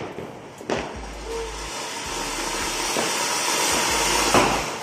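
An anar (flower-pot fountain firework) spraying sparks with a loud rushing hiss that builds steadily, peaks near the end, then starts to die down, with a sharp pop about a second in.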